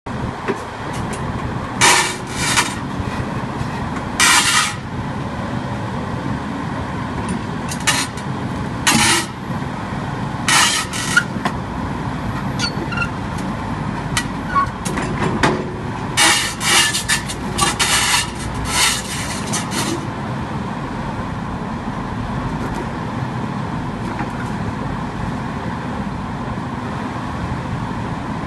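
Hidromek 370 excavator's diesel engine running steadily under load as its bucket pushes against a marble block to tip it. There is a run of short, harsh bursts through the first twenty seconds, and after that only the engine.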